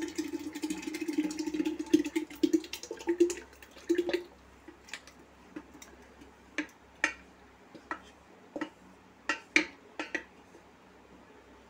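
Thick soaked-barley batter poured from a steel bowl into water in a clay pot, a liquid pour lasting about four seconds. Then a spoon scrapes and taps the last of the batter out of the bowl, a string of separate sharp scrapes and clicks.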